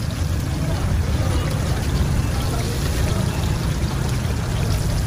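Egg kababs deep-frying in a wide karahi of hot oil: a steady sizzling and bubbling, over a steady low rumble.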